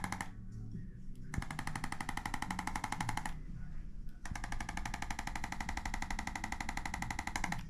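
Chiropractic activator tool on the neck, firing bursts of very rapid clicking a few seconds long with short pauses between.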